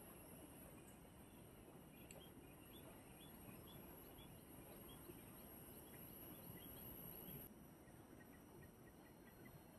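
Near silence with faint outdoor wildlife: a steady high-pitched insect buzz that drops away about three-quarters of the way through, and runs of short chirps repeated a few times a second, the later run lower and quicker.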